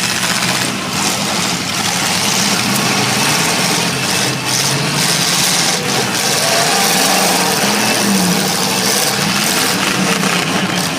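Demolition derby cars' engines running loud and steady, several at once, with pitch rising and falling as they rev.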